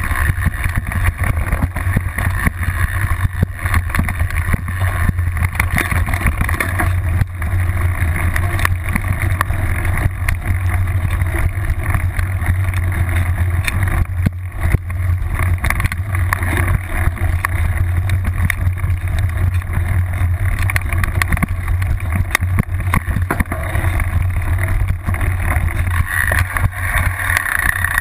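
Mountain bike riding fast over a bumpy trail, heard through a camera clamped to the seat post: a steady low rumble with constant rattling knocks as the rear wheel and suspension take the bumps.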